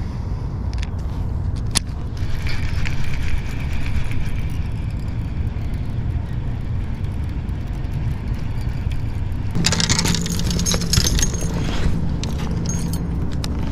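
Steady wind rumble on the microphone, with clicks and rustling from a baitcasting reel and fishing line being handled. The handling gets louder and busier from about ten seconds in.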